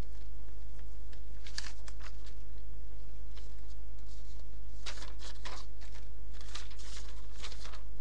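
Steady low electrical hum in the recording, with a few faint, soft rustles and clicks about two seconds in and again in the second half.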